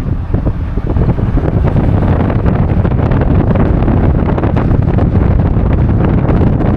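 Wind buffeting the camera's microphone: a loud, steady, rumbling roar heaviest in the low end, with constant gusty flutter.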